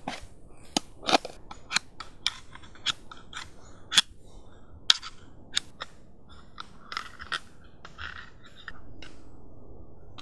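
Serrated knife point stabbed again and again into a tin can's metal lid, each punch a sharp metallic click, about two a second. Near the end it turns to a rougher scraping as the cut lid is levered up.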